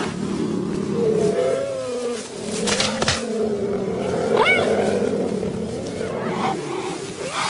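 Big cats growling at close range, a continuous low growl with a sharp burst about three seconds in.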